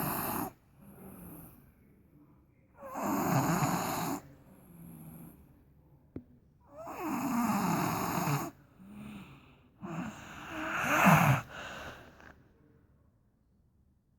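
A boy snoring: four loud, rasping snores about three to four seconds apart, with softer breaths between them.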